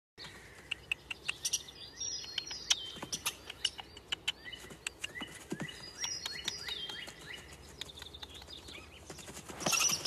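Small birds chirping in woodland, with repeated descending whistled calls and scattered sharp clicks; a denser, louder burst of clicks and calls starts just before the end.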